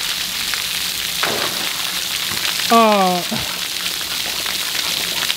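Splash pad water jets spraying onto wet concrete, a steady hiss. A short call from a man's voice, falling in pitch, comes about three seconds in.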